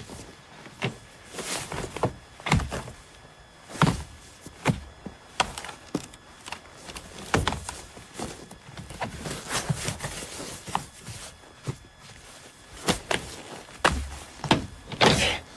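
Irregular knocks, thuds and rustling as a car's interior is searched by hand. The loudest thuds come near the end.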